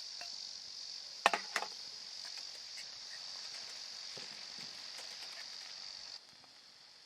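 Steady high-pitched insect chorus, with two sharp knocks about a second and a half in; the chorus turns suddenly quieter near the end.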